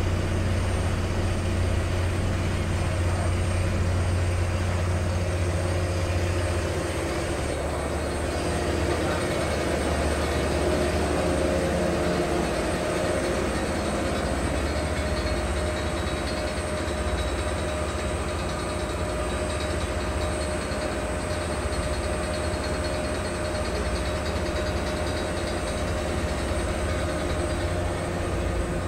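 Engine of a passenger boat running steadily under way, a deep hum with the wash of its wake on the water. The low hum eases a little about seven seconds in.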